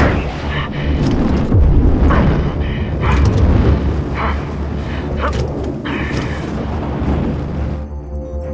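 Fighter jet (F/A-18E Super Hornet) flying fast and low in a film soundtrack: a deep, steady engine rumble with surges of rushing air about every second. Music with held tones comes in near the end.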